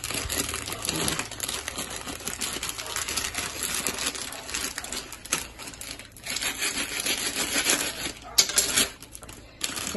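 Plastic instant-noodle wrapper crinkling and rustling as hands open an Indomie packet and pull out and tear at its small seasoning sachets, with a sharper crackle about eight seconds in.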